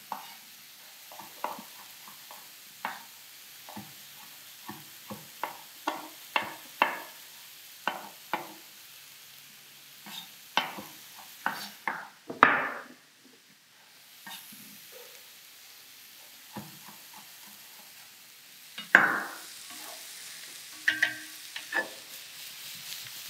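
Chef's knife chopping cooked chestnuts on a wooden cutting board: irregular knocks, one or two a second, for the first dozen seconds. Near the end, a wooden spoon stirs and tosses a pan of sautéing mushrooms and grated pumpkin, with a knock of the pan and steady sizzling.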